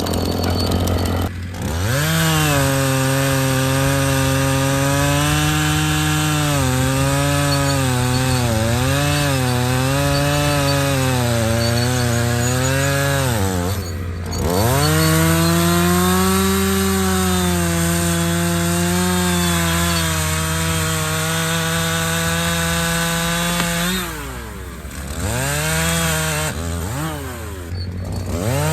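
Chainsaw cutting through a log, run at full throttle with its note sagging and wavering under load. It drops back briefly about halfway through, then is blipped a couple of times near the end. A steady low machine hum runs underneath.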